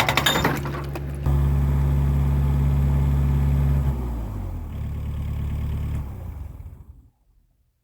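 Rented excavator's engine running after the hydraulic breaker's last rapid blows in the first half second; the engine steps up about a second in, drops lower in pitch about four seconds in, and dies away near the end.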